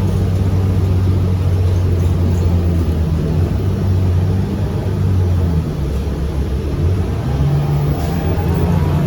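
Moving transit bus heard from inside the cabin: a steady low engine and drivetrain hum over road noise. The engine note shifts a little past halfway through.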